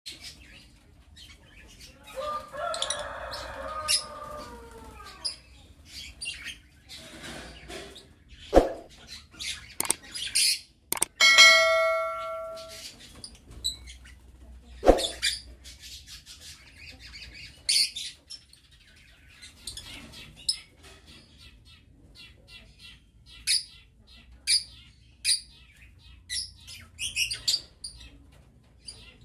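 A flock of lovebirds in an aviary chirping with many short, high calls and wing flaps. A few sharp knocks stand out, and a brief ringing tone sounds about eleven seconds in.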